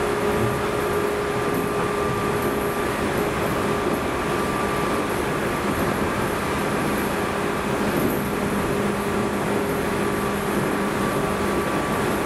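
Inside a JNR 213 series electric motor car (KuMoHa 213) running at steady speed. A constant whine of unchanging pitch from the traction motors and gears sits over the rumble of the wheels on the rails.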